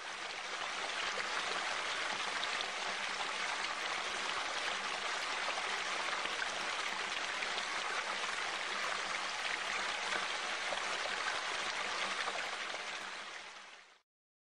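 A steady, even rushing noise, like running water, that fades out and stops about half a second before the end.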